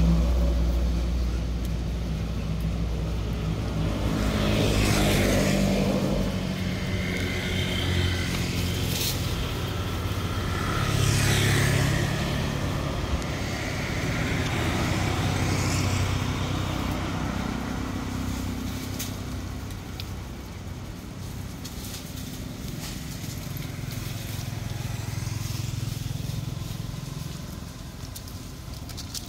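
Motor vehicle engines running as a steady low hum, with one vehicle passing about five seconds in and another about eleven seconds in; the hum fades toward the end.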